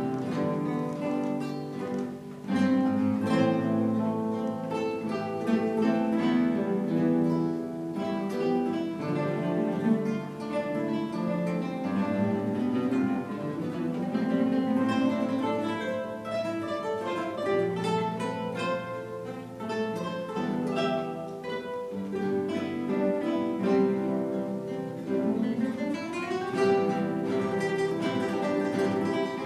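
Guitar ensemble playing: many acoustic guitars plucking and strumming together. A few held notes slide up in pitch about two-thirds of the way in and again near the end.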